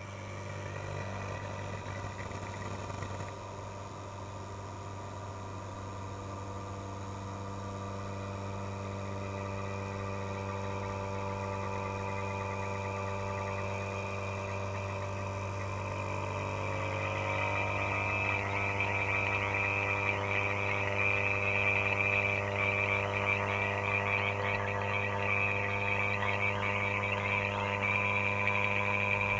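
Vacuum pump running steadily while evacuating a new air-conditioning line set and condenser, with a steady hum and a higher, harsher note that grows louder from about halfway through.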